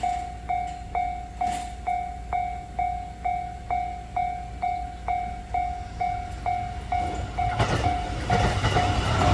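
Japanese railway level-crossing warning bell ringing, a steady electronic clang about two strikes a second. From about seven and a half seconds in, the rumble of an approaching train rises beneath it.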